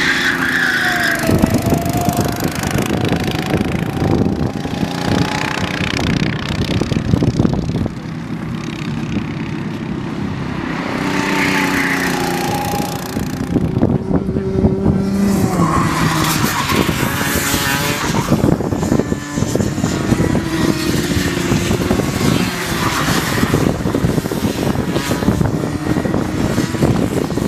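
Racing kart engines running hard on a road course, their pitch rising and falling in several passes as the karts accelerate and lift through the corners.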